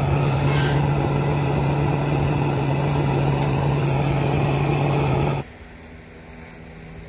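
A steady mechanical hum with a constant low tone under a wide hiss, like an idling engine. It cuts off abruptly about five seconds in, leaving a much quieter background.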